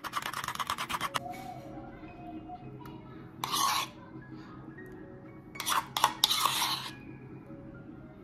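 A fork beating a mixture against the side of a bowl, rapid scraping clicks that stop about a second in. Then a spoon scrapes thick strained yogurt into a glass bowl in a few short scrapes, over soft background music.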